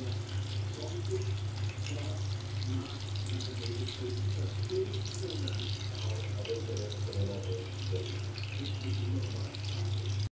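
Breaded chicken fillets deep-frying in hot oil in a pan, a steady bubbling and crackling sizzle over a constant low hum; it cuts off abruptly at the end.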